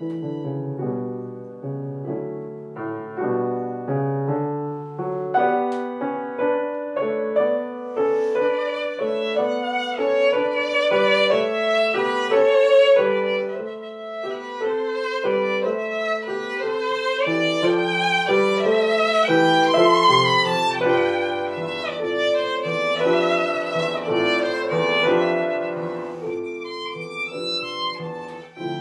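Violin and grand piano playing a classical piece together: the violin carries a melody with vibrato over a piano accompaniment.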